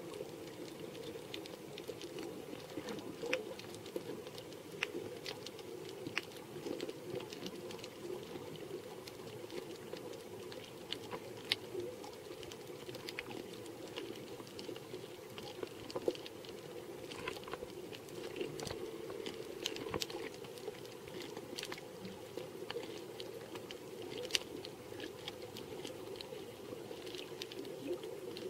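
Underwater sound on a coral reef: scattered, irregular sharp clicks and crackles over a steady muffled hiss.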